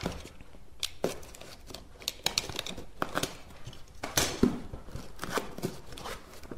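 Cardboard product box being opened by hand: a knife cuts through the seal tape, then short scrapes and taps of cardboard and a longer tearing rustle about four seconds in.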